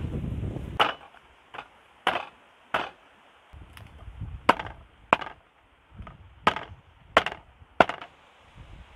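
Cleaver chopping raw chicken on a round wooden chopping block: about ten sharp chops at an uneven pace, roughly one a second.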